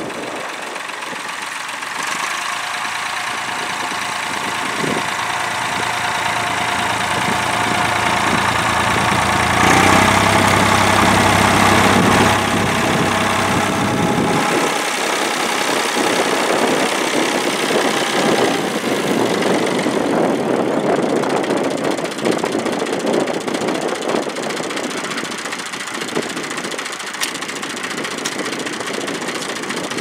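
David Brown tractor engine running steadily under load while pulling a mounted plough, growing louder as it comes near. About halfway through there is an abrupt change to the engine heard close up, with more rattle and noise.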